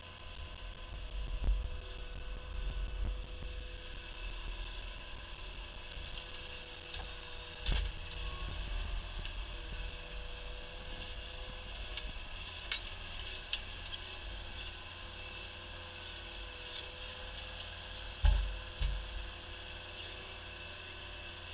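Compact track loader running steadily while its forks lift a fence post out of the ground on a chain, with a few knocks and clanks and a loud thump near the end.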